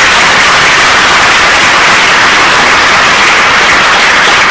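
Audience applauding at the end of a poem's recitation: loud, steady, dense clapping.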